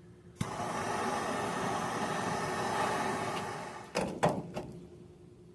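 Impact wrench running in one burst of about three and a half seconds on a seized 18 mm caliper bracket bolt that has just been heated with propane, then a few sharp metal knocks as it stops.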